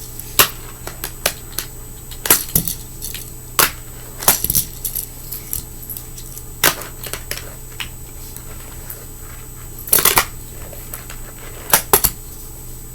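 Sharp plastic-and-wood clacks of a fingerboard being popped with the fingers and landing on a hard surface. The clacks come irregularly, with the loudest clusters about ten and twelve seconds in.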